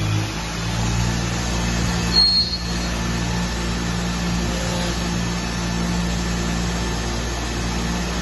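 Takisawa NEX CNC lathe running in a robot-tended cell: a steady machine hum with several low tones. A short high-pitched squeal comes about two seconds in.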